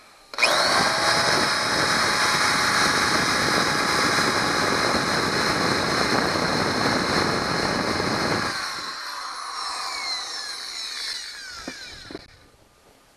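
Electric power drill driving a small bit into a broken steel screw stub lodged in a leaf blower's cylinder, drilling it out. It runs steadily under load for about eight seconds, then the load drops and the motor winds down in a falling whine over the next few seconds.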